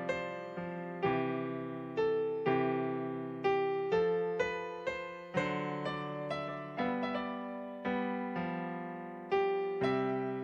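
Solo piano playing a slow, gentle hymn prelude: sustained chords struck about once a second, each ringing and fading before the next.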